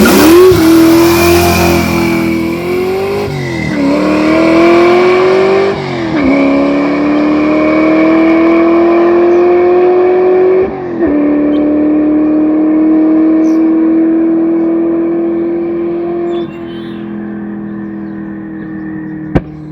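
Ford Falcon drag car launching and accelerating hard. The engine note climbs steadily in each gear and drops at gear changes about three and a half, six and eleven seconds in. The driver lifts off about sixteen seconds in and the engine settles to a lower, quieter note.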